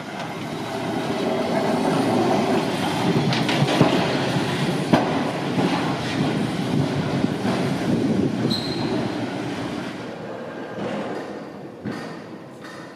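A tram running slowly on rails, a steady rumble of wheels on track that builds over the first two seconds and fades over the last few. A few clicks and a brief high squeal come about eight and a half seconds in.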